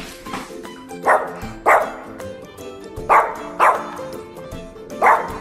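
Yorkshire terrier barking: five sharp barks, mostly in quick pairs about half a second apart, over background music.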